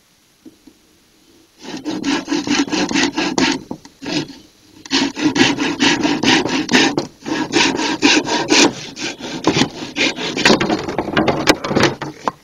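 Hand saw cutting through a bamboo pole in quick back-and-forth rasping strokes, starting about a second and a half in and pausing briefly twice.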